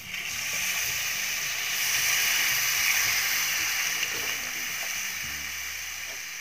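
Thin besan (gram flour) batter poured into a kadhai of hot oil, cumin and spices, hissing and sizzling as it hits the oil. The hiss builds over the first two seconds and then slowly dies away as the off-heat pan cools.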